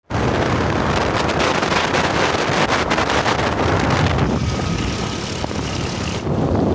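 Wind buffeting the microphone: a steady, loud rumbling rush that eases slightly about four seconds in.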